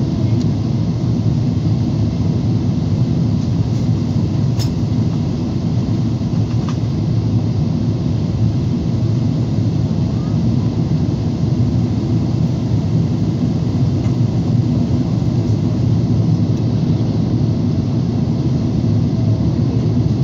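Boeing 777-300ER cabin noise on approach, heard from a window seat over the wing: a steady low rumble of its GE90 engines and rushing air that stays even throughout. A single faint click about four and a half seconds in.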